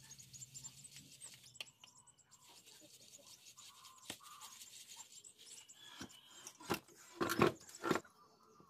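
Rice flour being sifted by hand through a plastic sieve: scratchy rubbing and rustling of flour against the mesh with scattered light taps. A few louder knocks come about seven to eight seconds in.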